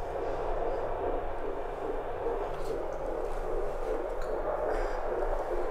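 Fetal Doppler heart monitor relaying an unborn baby's heartbeat over a low hum.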